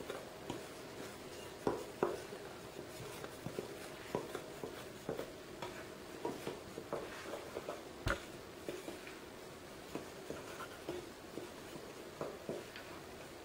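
Wooden spoon stirring dry flour, cornmeal and powdered milk in a glass mixing bowl: soft, irregular scraping with small knocks of the spoon against the bowl, one sharper knock about eight seconds in.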